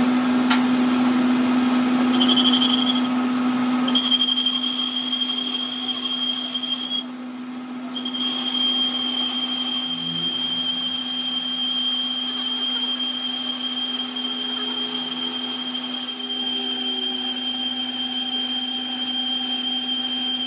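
Metal lathe running with a gear turning in its chuck while a boring bar works inside the bore: a steady hum with a thin high-pitched whine over it that drops out briefly about seven seconds in.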